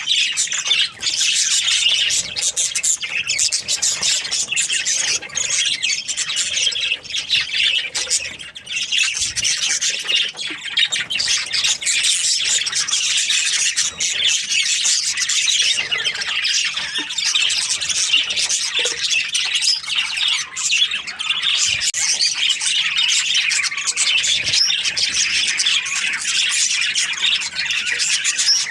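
A flock of budgerigars chirping and chattering without a break, many birds calling over one another.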